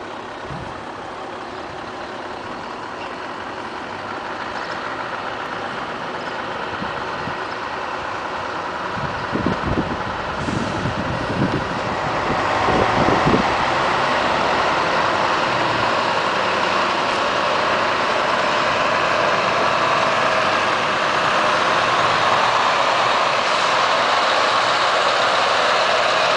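Scania R500's V8 diesel engine running as the truck drives slowly toward and past, growing steadily louder as it nears. A few low thumps come around ten seconds in.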